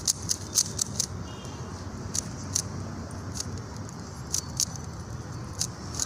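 Plastic 3x3 Rubik's cube being turned fast by hand in a timed solve: quick, irregular clicks of the layers snapping round, several a second, with short flurries of turns.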